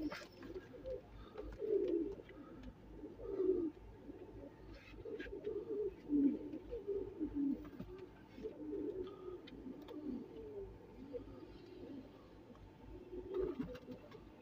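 Domestic pigeons cooing over and over in low, warbling coos, a male courting his mate as he turns and bows around her.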